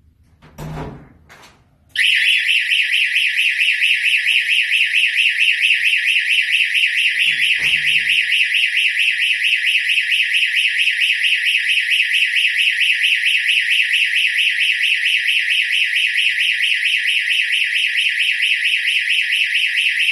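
Electronic siren of a door-access security alarm sounding, starting suddenly about two seconds in and continuing loud and steady with a rapid pulsing warble. A couple of short knocks come just before it.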